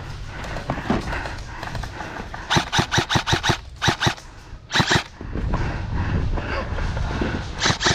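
Airsoft electric gun (AEG) firing rapid strings of shots, about seven a second: one run of about a second starting two and a half seconds in, a short burst near the middle, and another string near the end.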